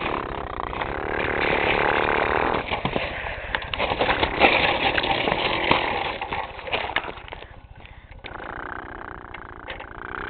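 Toy monster truck's small motor whining and revving as its tyres spin in snow, with scattered clicks and crunches. It drops off and goes quieter about three-quarters of the way through.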